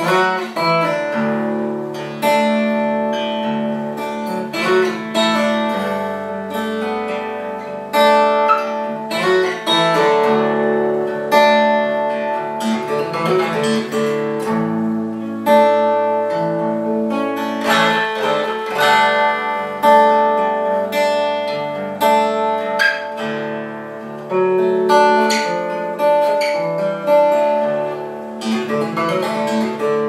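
Acoustic guitar in open D tuning playing instrumental blues, with picked notes ringing over a steady low drone.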